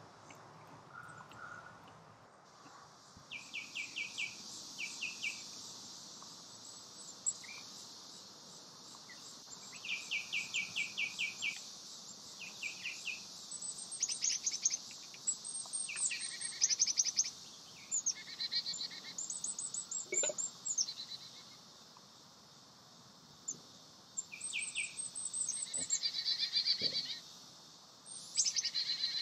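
Several birds singing and calling: fast repeated trills, short chirps and high whistles, one after another, over a steady high insect hiss.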